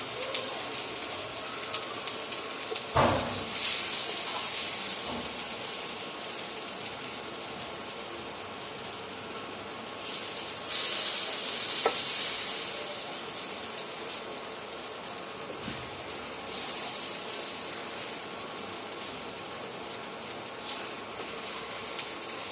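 Okra and tomato fry sizzling in the hot pan with a steady hiss that swells three times, with three sharp utensil knocks against the pan.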